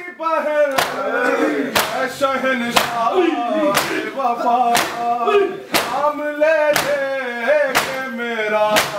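Men chanting a noha, a Shia lament, in a steady rhythm while beating their chests in matam: a sharp open-hand slap on the chest lands about once a second, nine times, keeping time with the singing.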